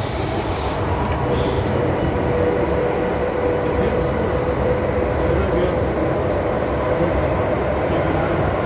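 Inside an MTR M-Train subway car running through a tunnel: the steady rumble of wheels and running gear with a steady mid-pitched whine. A brief high-pitched tone sounds twice in the first two seconds.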